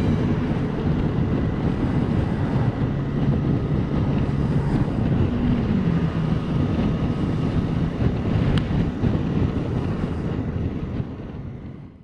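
Triumph Tiger 660's three-cylinder engine running while riding, with wind noise on the microphone. The engine note drops about halfway through, and the sound fades out near the end.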